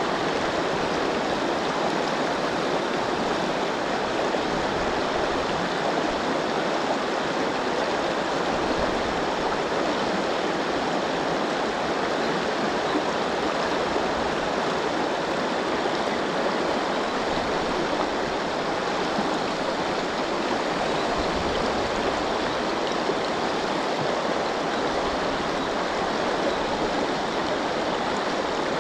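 River water rushing steadily, an even rapids noise with no change in level.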